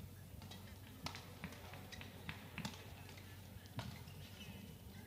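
Badminton rally: sharp racket strikes on a shuttlecock, roughly a second apart, over the low hum of a large hall.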